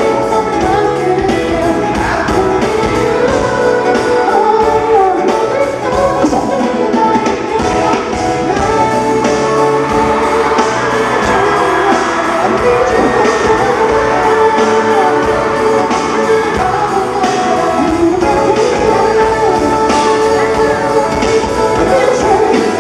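Live pop concert: a male singer on a headset microphone sings over a loud dance track with a steady beat.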